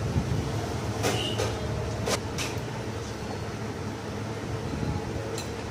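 A few light metallic clicks and taps as a Royal Enfield Bullet's cast-iron cylinder barrel is worked down over the piston and studs, over a steady low hum.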